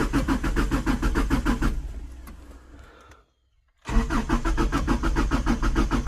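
Subaru EJ25D 2.5-litre flat-four being cranked by its starter, a fast, even chug of about eight beats a second that never catches. The key is released about three seconds in and it cranks again a second later. It is a crank-no-start on a Reetwire standalone ECU install.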